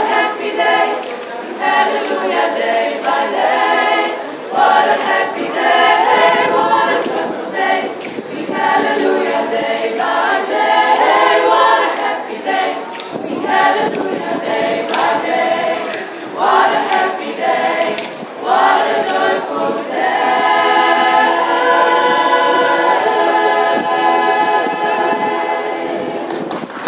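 A group of singers performing a cappella in several voice parts, with no instruments. The piece ends on a long held chord near the end.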